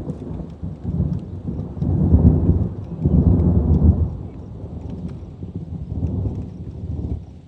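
Rolling thunder rumbling low, swelling to its loudest about two to four seconds in and then dying away, with rain pattering.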